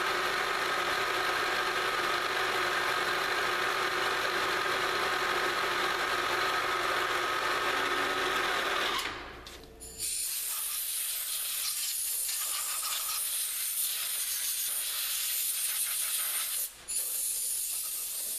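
A vertical milling machine's spindle running steadily as the end mill roughs a pocket in aluminium. The sound stops about nine seconds in. About a second later a compressed-air blowgun starts hissing loudly as it blasts the chips off the part, with one short break near the end.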